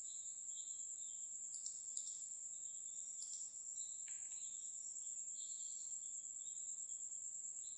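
Faint background insects, like crickets: a steady high-pitched trill with scattered shorter chirps lower down.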